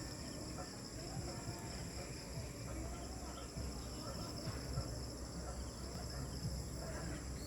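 Evening insect chorus, crickets trilling steadily in several high, unbroken pitches, over a faint low rumble.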